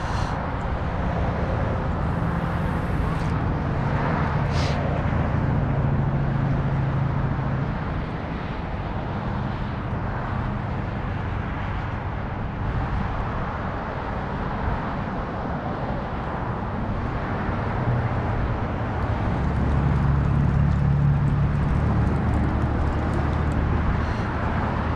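Steady rumble of passing road traffic, engines humming under a wash of tyre noise, swelling louder for a few seconds near the end.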